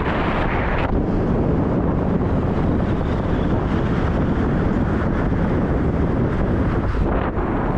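Wind buffeting the microphone of a camera on a moving bicycle: a steady, loud rushing noise.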